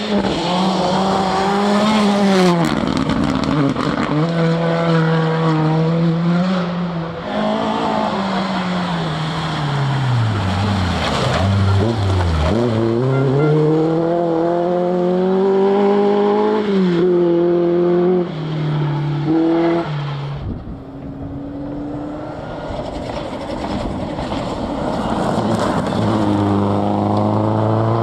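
Rally cars driven hard on a gravel stage. The engine note climbs through the gears and drops sharply on lifting off, falling lowest at about 12 seconds in. Another car's engine note is climbing near the end.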